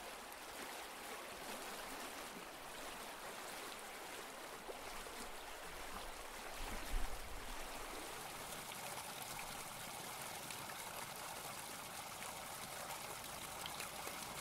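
Steady, faint sound of running water trickling, with a brief low bump of handling about seven seconds in.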